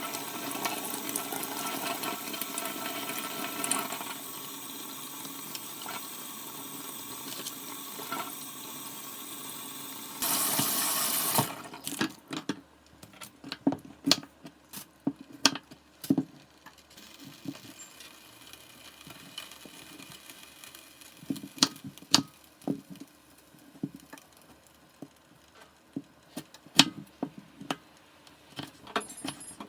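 Running water rushing steadily, ending in a louder surge about ten seconds in and then cutting off. After that, scattered sharp clicks and knocks over a quiet background.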